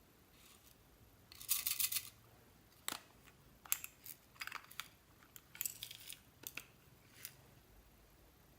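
Slime being worked by hand, making short sticky crackles and clicks: a longer crackle about a second and a half in, then scattered single clicks and pops.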